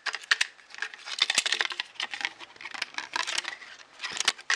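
A bicycle bottle cage and its bracket parts being handled: a quick, uneven run of small clicks and rattles.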